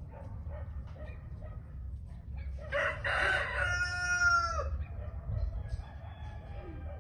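A rooster crowing once: a single call of about two seconds, starting nearly three seconds in, harsh at first, then a held pitch that drops at the end.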